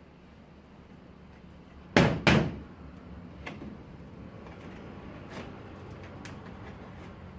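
Two loud, sharp knocks about a third of a second apart, about two seconds in, then a few faint clicks over a low steady hum.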